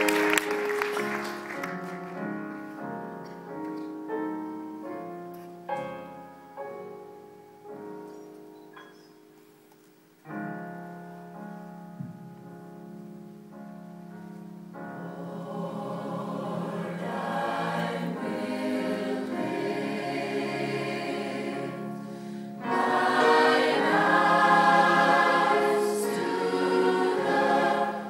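Large mixed choir singing. Applause dies away at the start, a sparse, quiet opening of single decaying notes follows, and the full choir comes in softly about ten seconds in, then swells suddenly much louder about two-thirds of the way through.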